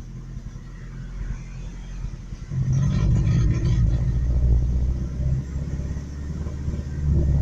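Truck engine running rough and unevenly: a low rumble that swells about two and a half seconds in, sags again, and picks up near the end. The owner takes the uneven running for fuel starvation, the truck being almost out of gas.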